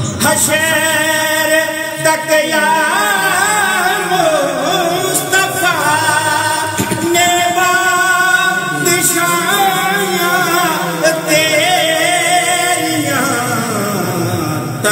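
Male voice singing a naat in long held, ornamented notes that waver and bend up and down.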